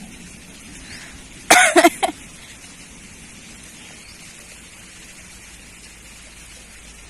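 Steady hiss of rain falling. About one and a half seconds in there is a short, loud burst from a person's voice.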